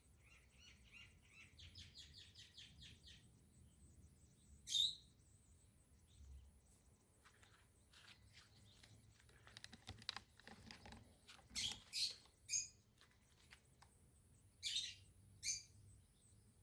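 Birds chirping: a quick run of short high notes at the start, then a few loud, sharp calls, one about five seconds in, three close together around twelve seconds and two near the end, with faint clicks and rustles between.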